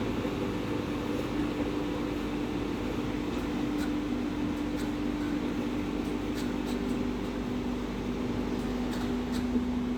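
Automatic car wash machine running with a steady mechanical hum and a constant low drone.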